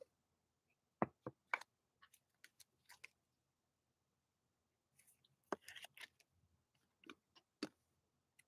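Faint, scattered clicks and taps of trading cards in plastic sleeves and rigid top-loaders being handled and set down, a few about a second in and more from about five and a half seconds on.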